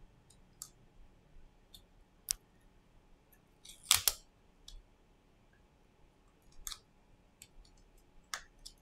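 Small sharp clicks and taps of a plastic spudger and fingertips working on an opened smartphone's frame and flex cable, a handful scattered through, with the loudest quick cluster of clicks about four seconds in.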